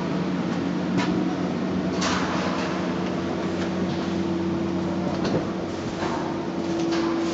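Steady drone of running drying machinery, with a constant hum whose tone steps higher about two and a half seconds in, and a few short knocks.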